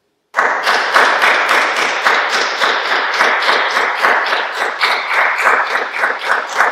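Applause: hands clapping in a steady run of sharp claps, about four to five a second, starting about a third of a second in.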